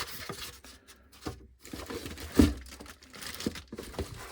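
Packaging crinkling and rustling as items are lifted out of a box, with scattered light knocks and one louder knock about two and a half seconds in.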